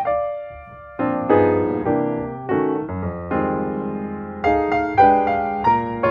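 Background piano music: notes and chords struck and left to ring out, with a short lull just before a second in, then playing on.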